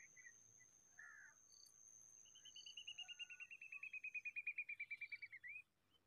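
A songbird's fast trill of about nine short notes a second, growing louder and falling slightly in pitch, ending on a rising note. Under it is a steady high insect tone that stops partway through.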